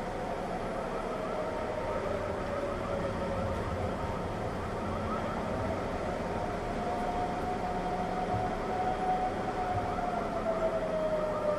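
Dallas outdoor tornado warning sirens wailing, their sustained tone rising and falling slowly and sliding lower near the end.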